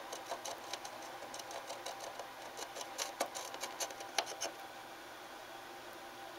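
An unseen animal scratching and digging inside a wooden wall: quick, irregular, faint scratches and clicks that thin out after about four and a half seconds.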